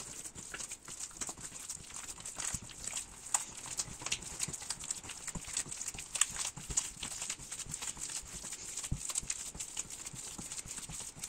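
Soft yeast dough being kneaded by hand in a bowl as butter is worked into it: many quick, irregular sticky clicks and slaps of wet dough against the fingers and bowl.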